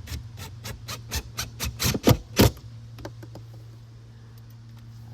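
A hand tool clicking as a jump-seat screw is driven in: a run of sharp clicks, about four a second and getting louder, then a few fainter ones.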